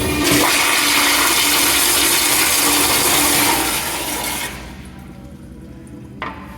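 Commercial restroom toilet flushing: a loud rush of water that holds steady for about three and a half seconds, then tails off and stops. A single sharp click follows near the end.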